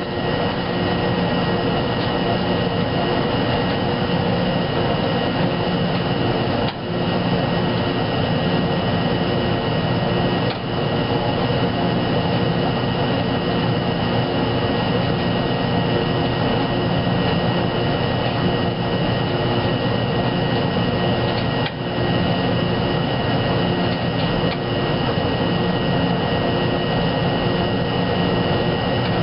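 Wascomat Junior W73 commercial front-load washer running with its drum turning at speed: a steady motor and drum whine with constant high tones over a low hum.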